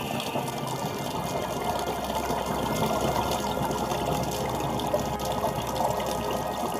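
Steady bubbling, gurgling water heard underwater, with small swells in level.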